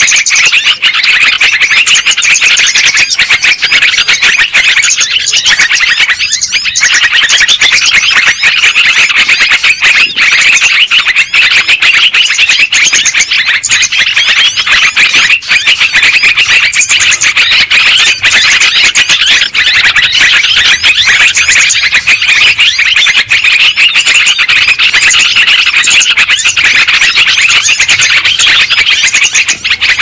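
Yellow-vented bulbuls (terucukan) chattering in a dense, unbroken chorus of loud, rapid chirping calls.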